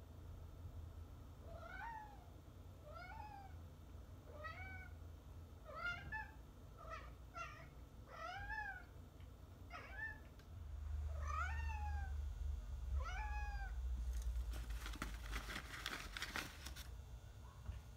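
Domestic cat meowing about ten times, short calls that each rise and fall, roughly a second apart, made with a sheet of paper held in its mouth. Near the end, a sheet of paper rustling and crinkling as the cat handles it.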